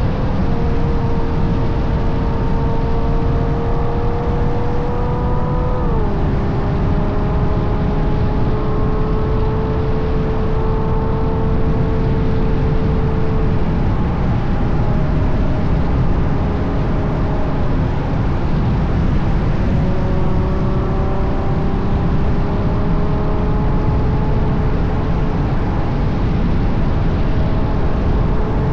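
Ferrari GTC4Lusso's V12 through a Capristo aftermarket exhaust under way at road speed. The engine note climbs slowly, drops sharply about six seconds in as the gearbox upshifts, eases back midway, then returns and climbs again. Heavy wind and road rumble sit underneath.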